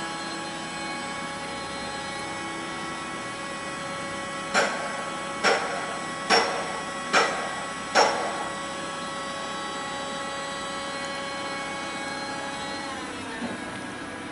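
Electric hydraulic lift pump of a Linde K10 man-up order picker whining steadily while the cab rises up the mast. About halfway there are five evenly spaced knocks, a little under a second apart. Near the end the whine falls in pitch and winds down as the lift stops.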